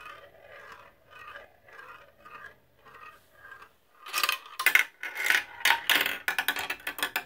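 A glass marble rolling around a plastic marble-run funnel bowl, a soft scraping roll that swells and fades about twice a second. About four seconds in it gives way to a loud rapid clatter of clicks and knocks as the marble drops through and rattles down the plastic tubes and tracks.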